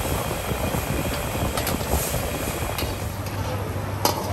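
High-flame gas wok burner under a wok of boiling seafood broth, giving a steady rush, with a metal ladle knocking on the wok a few times and once more sharply as the wok is tipped to pour.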